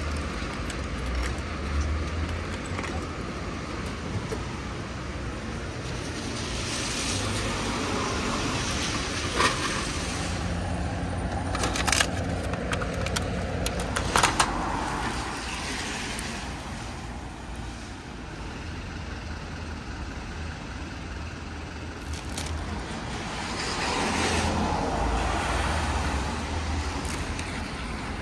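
Road traffic passing in slow swells, with a few sharp clicks and knocks in the middle as a frozen-food vending machine takes payment and drops a packaged ice bar into its dispensing bay.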